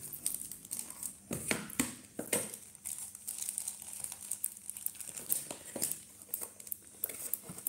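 Irregular crinkling and rustling with scattered clicks, as packaging is handled by hand.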